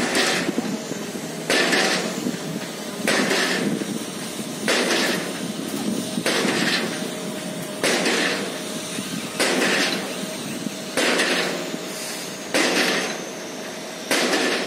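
Piling hammer driving steel sheet piles: heavy strikes at a steady pace of about one every second and a half, each with a short ringing tail, over the steady running of machinery.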